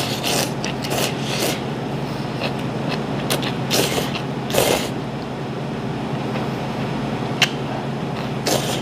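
A person slurping instant ramen noodles with chopsticks from a small bowl, in several short noisy pulls over a steady low hum. There is one sharp click a little before the end.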